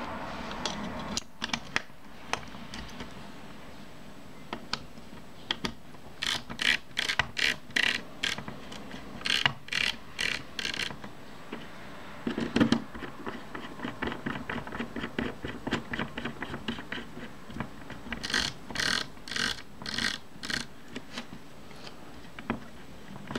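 Small metal clicks and short rasping scrapes from hand work on a Kodak Retina Ia camera body: the top housing being seated and its tiny screws driven with a small screwdriver. Two runs of quick rasping strokes, one near the middle and one near the end.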